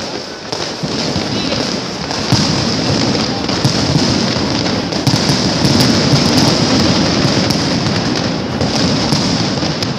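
Fireworks going off in a dense, continuous barrage of crackling and popping, over a steady high hiss.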